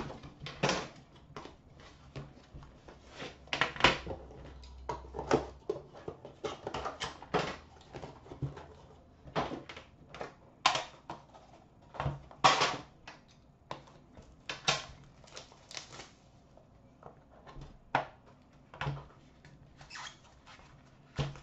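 Hands unboxing a trading-card box: cardboard sliding and rubbing, and the inner case knocked and set down, as scattered clicks, taps and short scrapes at an uneven pace.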